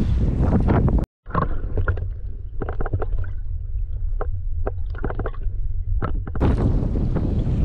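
Strong wind buffeting the camera microphone on a kayak at sea. The sound cuts out for an instant about a second in. For a few seconds after that it is only a muffled low rumble with scattered knocks and clicks, then the loud wind noise comes back near the end.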